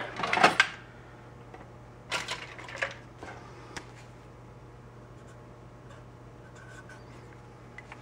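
Metal clinks and clicks of a hand tool working on the brass horn parts, several in the first few seconds, over a steady low hum.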